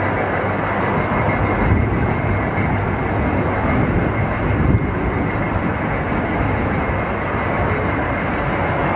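Sukhoi Su-35 fighter jet's engines running loud and steady: a continuous rushing noise with a thin, high steady whine through it.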